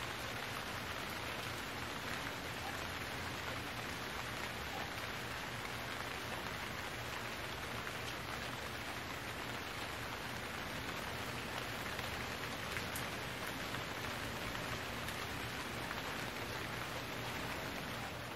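Steady rain falling, an even hiss with no single drops or other sounds standing out.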